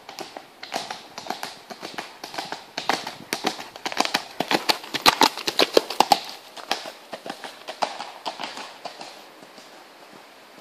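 Hoofbeats of a feathered piebald cob moving fast on a packed dirt track. They grow louder as it approaches, are loudest about five to six seconds in as it passes close, then fade as it moves away.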